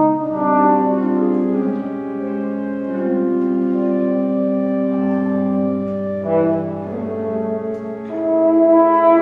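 French horn and organ playing a contemporary classical duet: long held horn notes over sustained organ chords, the harmony shifting every few seconds.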